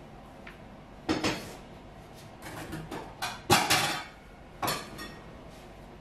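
Dishes and pots being handled on a kitchen bench: a series of knocks and clatters, the loudest about three and a half seconds in.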